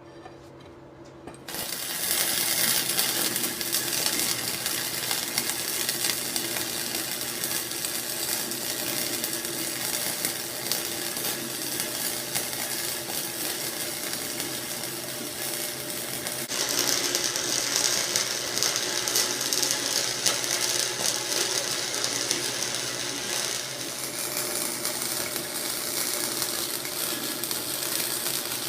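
Flux-core wire-feed welder running a weld on steel pipe fittings: a steady, dense sizzling crackle that starts about a second and a half in. It turns brighter and harsher about halfway through and eases a little near the end.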